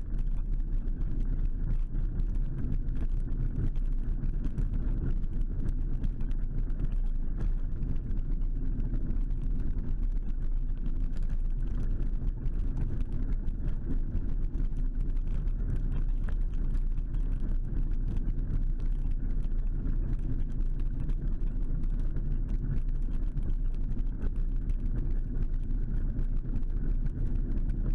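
An 8 mph electric mobility scooter driving along on tarmac: a steady low rumble of its motor and tyres that holds an even level throughout.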